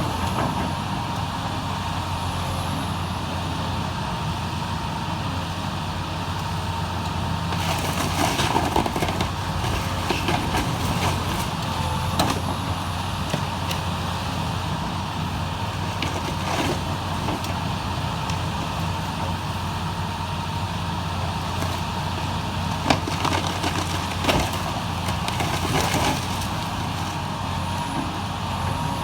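Heavy diesel demolition machinery running steadily, with irregular crashes and clatter of breaking building debris several times.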